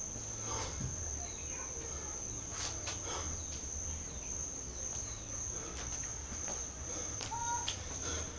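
Insects trilling steadily at one high pitch over a low rumble, with scattered faint clicks and a short whistled note near the end.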